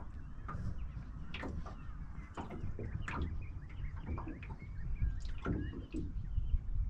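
Birds calling in short, irregular calls over a low rumble of wind on the microphone.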